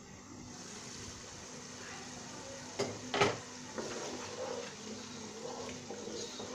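A glass pot lid is taken off a pot of mutton cooking in oil, with two sharp knocks about three seconds in. A long wooden spatula then stirs and scrapes the meat, which crackles and sizzles against a steady hiss.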